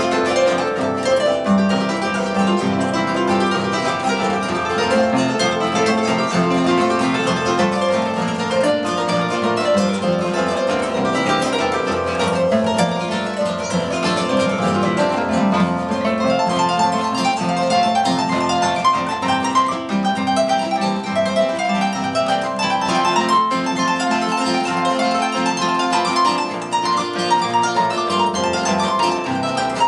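Harp being played: a continuous run of plucked notes, a melody over repeated bass notes.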